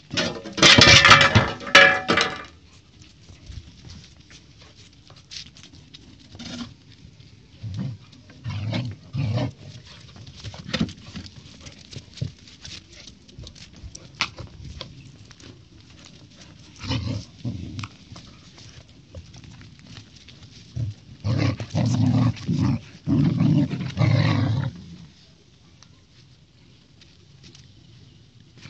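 Husky puppy and golden retriever puppy play-fighting: a loud, high cry in the first two seconds, then bouts of low growling and snarling, with the longest and loudest bout a few seconds before the end.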